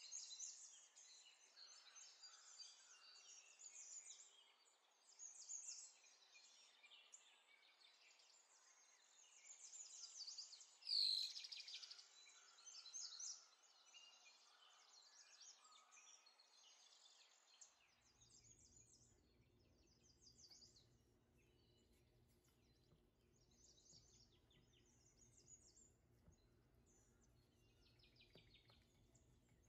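Faint scratchy rustling of a wire whisk stirring dry seasoned flour in a bowl, with one louder knock about eleven seconds in. From about eighteen seconds a low steady hum comes in under soft rustles of chicken pieces being pressed into the flour.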